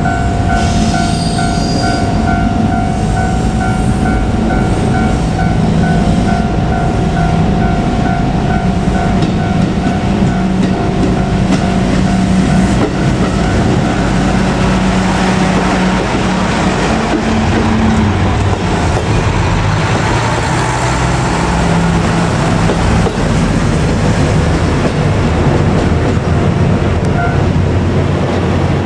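A level-crossing warning bell rings with an even, repeating two-note tone. A KiHa 200 diesel railcar runs up and over the crossing with its engine running. After about twelve seconds the train's running noise grows and drowns out the bell.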